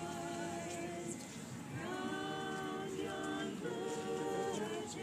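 A quartet of carolers, men and women together, singing a carol a cappella in harmony, with long held notes.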